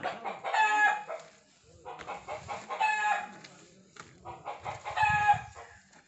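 Chicken calling three times, short, evenly pitched calls about two seconds apart.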